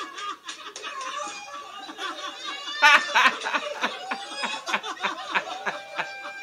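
A man laughing hard in quick, breathy snickers, loudest about three seconds in.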